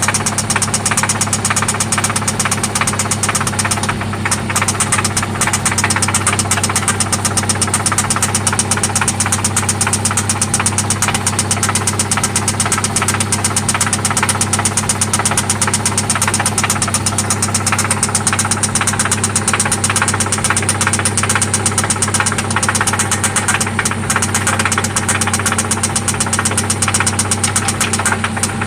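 1995 Toyota Celica ST's 1.8-litre four-cylinder engine running steadily with a loud, fast, even knock. The knock is still there after an oil change and new spark plugs.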